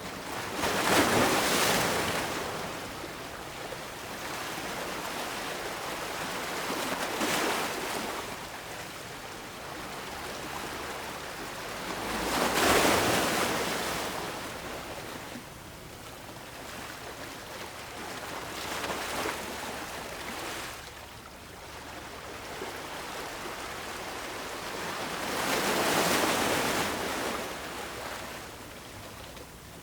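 Ocean surf breaking on the shore, swelling and fading in waves about every six seconds, the biggest about a second in, around halfway and near the end.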